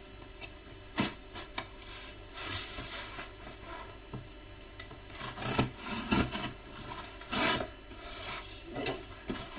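A cardboard shipping box being handled and opened by hand: irregular rubbing, scraping and tearing of cardboard and packing, with a sharp tap about a second in.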